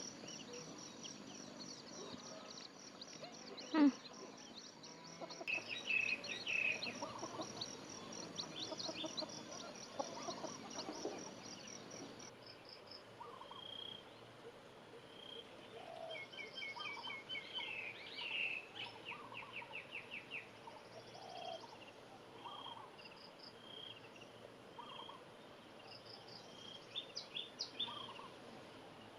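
Chicks peeping and small birds chirping in short repeated calls, over a fast high trill that stops about twelve seconds in. One louder short call comes about four seconds in.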